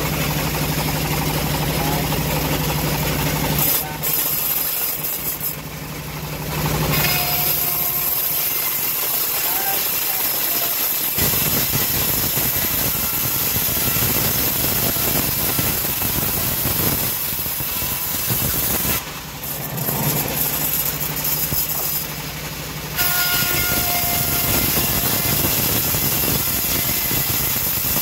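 Homemade band sawmill ripping a teak board lengthwise: the machine runs with a steady low hum under the hiss of the blade cutting through the wood. The sound drops briefly a few times.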